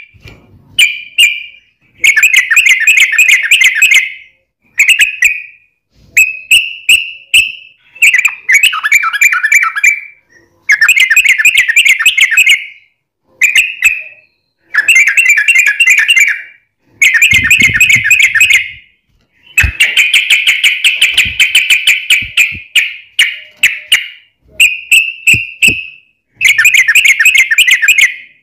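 Yellow-vented bulbul (trucukan) in full song, giving its rapid chattering, bubbling phrases over and over. The bursts last from under a second to about three seconds, with short pauses between them.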